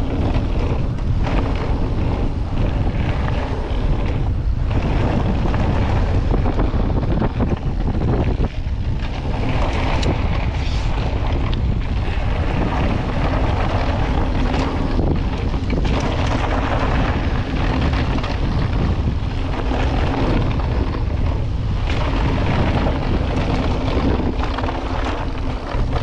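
Mountain bike descending a rough trail at speed: steady wind rush on the action camera's microphone over tyre noise and the bike's rattle, with frequent knocks from bumps and a low steady hum underneath.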